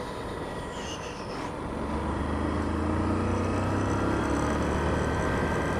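Honda CBF125's single-cylinder 125cc engine running under way, growing louder about two seconds in as the bike pulls away through a roundabout, with wind rushing over the helmet microphone.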